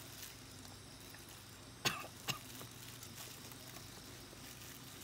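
Two short coughs, about half a second apart, from a person eating.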